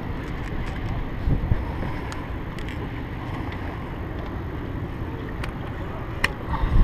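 Wind rumbling on the microphone over the wash of river water around a boat, steady throughout, with a few faint light clicks.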